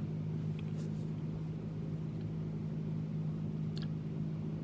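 Steady low machine hum of the room's equipment, with a few faint clicks.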